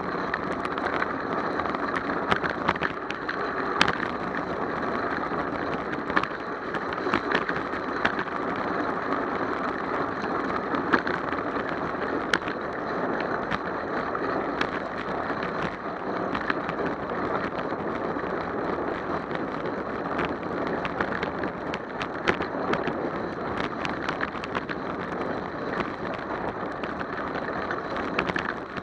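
Bicycle rolling steadily on wet pavement: a continuous rushing road and tyre noise, with scattered sharp clicks and knocks throughout.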